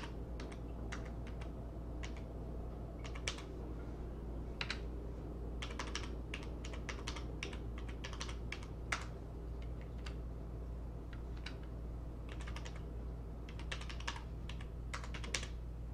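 Computer keyboard keystrokes typing in short runs of quick clicks with brief pauses between them, over a steady low background hum.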